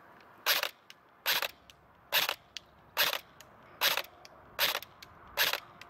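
LCT LTS-Keymod AK-pattern airsoft electric gun firing seven single semi-automatic shots, about one every 0.8 seconds. The hop-up is set to its middle position.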